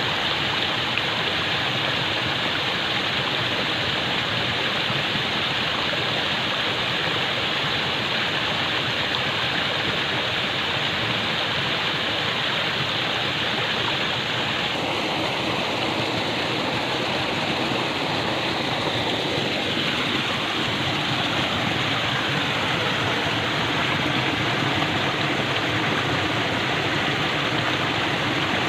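Falling water pouring steadily in a continuous rushing hiss, like a small waterfall or cascade.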